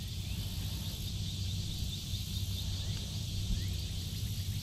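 Insects trilling steadily in a fast, even pulse, over a low steady hum.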